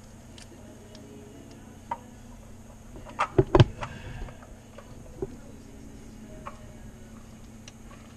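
Sharp knocks and clicks of hand work on an oil feed line fitting in a cramped engine bay: a single click, then a quick cluster of about four louder knocks about three and a half seconds in, and another click a little later. A faint steady hum runs underneath.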